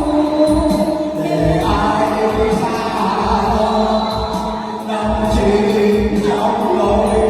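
Music: a slow Vietnamese song with singing over the backing, moving in long held notes.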